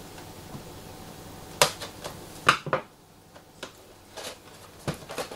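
A paper gift box being opened: its packing tape slit with a screwdriver and the stiff cardboard flaps pulled apart by hand, giving several short, sharp snaps and crackles of paper and tape.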